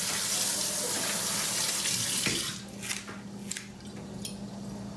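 Kitchen faucet running into a stainless steel sink, a steady rush of water that is shut off about two and a half seconds in. A few light clicks and knocks follow.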